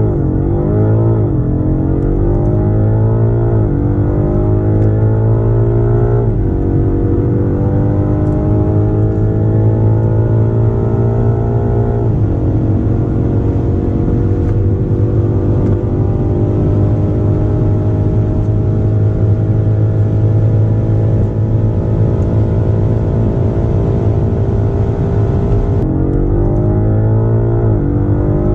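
Twin-turbocharged V8 performance car accelerating flat out through the gears. Engine pitch rises in each gear and drops at every upshift, with shifts coming quickly at first and then one long pull at high speed. Near the end a fresh run starts, climbing with quick shifts again.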